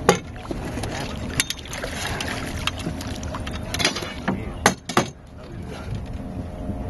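Sharp knocks and splashes at the side of an aluminum fishing boat while a hooked paddlefish is worked into a landing net, over a steady motor hum. The knocks come irregularly, with two close together about two-thirds of the way through.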